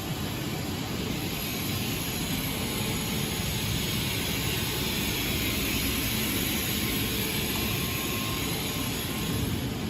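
Steady machine noise from a fiber laser welding machine at work, with a higher hiss that swells a couple of seconds in and fades again near the end.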